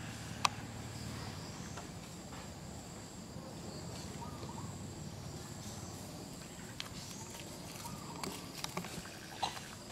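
Outdoor ambience: a steady high-pitched insect drone over a soft background hiss, with scattered faint clicks and rustles, a few more of them near the end.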